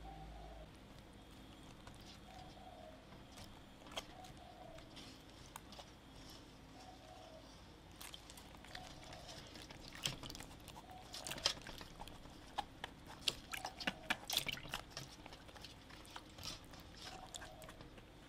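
Hands washing quartered cabbages in a stainless steel basin of water: light splashes and crisp rubbing and creaking of the leaves. The sounds are sparse at first and busiest in the second half. A faint short call recurs every second or two behind it.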